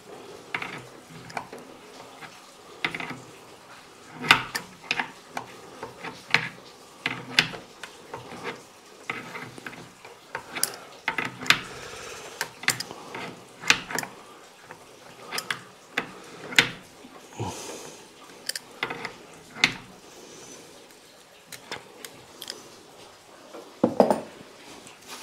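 A metal spanner clinking and clicking against the brass pipe fitting of an electric shower as the fitting is worked on, in irregular sharp taps throughout, with a heavier knock near the end.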